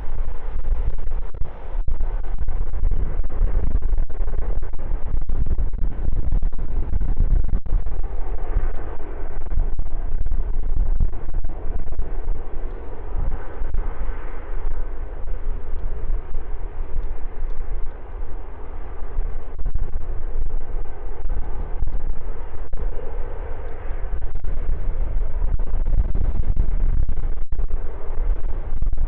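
Jet engines of a large aircraft on its takeoff run, swelling and fading under heavy wind buffeting on the microphone. The sound is badly clipped and distorted by the strong wind.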